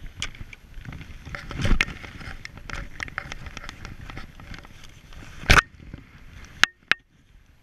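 Handling noise on a worn action camera: a gloved hand and sleeve knock and rub against it, with scattered clicks and scuffs from skis and poles. The loudest knock comes about five and a half seconds in, followed by two sharp clicks and a brief gap of near silence.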